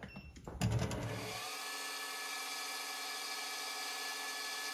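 A few clicks and knocks from handling the tooling, then about a second in a metal lathe starts and runs steadily with several steady whining tones. An 11/64 in. brass drill in the tailstock is fed into the spinning brass bearing blank, the hole being worked up slowly.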